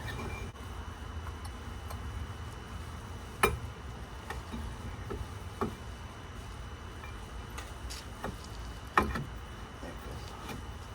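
Hand tools clicking and knocking against metal car parts during front hub work, with two sharp, louder knocks about five and a half seconds apart and lighter clicks between, over a steady low hum.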